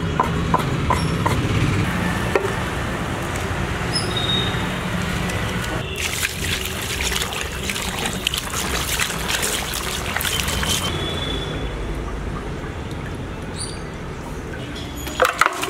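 Running water splashing over raw chicken pieces as they are rubbed and washed by hand in a perforated aluminium colander, loudest in the middle of the stretch.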